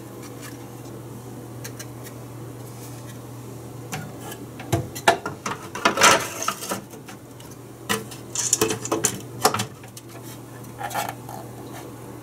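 Payphone parts being handled in the open stainless-steel housing: a run of clicks, knocks and scrapes as the circuit board and its plastic module cover are worked, loudest from about four to ten seconds in, over a steady low hum.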